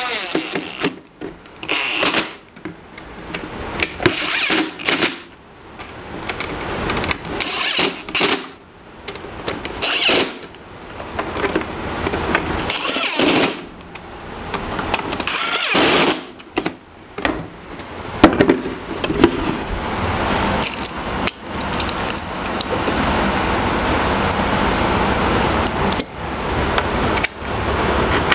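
Cordless drill driving screws into a plastic dust-collection box in short bursts of a second or two, with pauses between screws. From about two-thirds of the way in, a steady rushing noise takes over.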